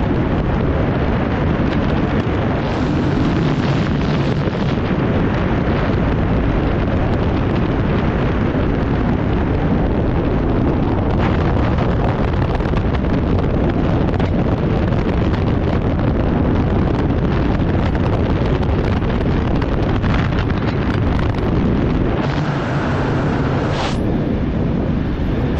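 Freefall wind rushing over the skydiver's camera microphone, loud and steady throughout. A short rising tone sounds near the end.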